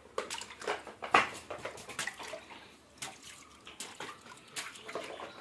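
Shallow water splashing in irregular little bursts as a small child wades and paddles about in a concrete pool.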